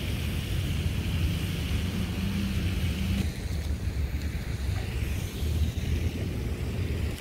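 Wind buffeting the microphone: a steady, uneven low rumble, with a higher hiss that drops away about three seconds in.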